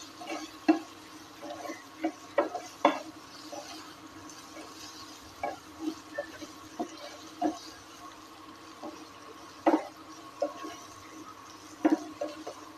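A spatula scraping and knocking against a nonstick frying pan as boiled baby potatoes are stirred and tossed in oil with spices: irregular clicks and scrapes with a few sharper knocks, over a faint steady frying sizzle.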